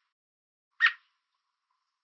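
American robin giving a single short, sharp chirp call a little under a second in, one of a series of evenly spaced chirps that the uploader takes for a warning call.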